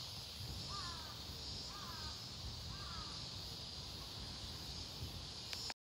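A crow cawing three times, about a second apart, over a steady high-pitched hiss.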